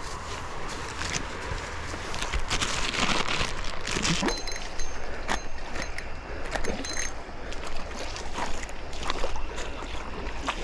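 River water flowing and sloshing, with scattered clicks and a louder stretch of splashing about three to four seconds in.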